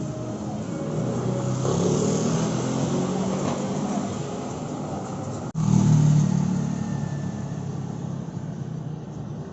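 Street traffic: motor vehicles passing close by, their engines pulling away. The sound breaks off for an instant about five and a half seconds in, then a louder engine passes.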